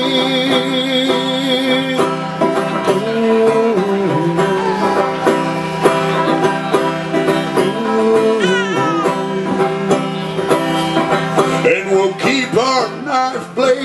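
Banjo played with a driving picked rhythm during an instrumental break in a live country-folk song. A held, wavering sung note trails off over the first couple of seconds, and a short swooping vocal cry comes about halfway through.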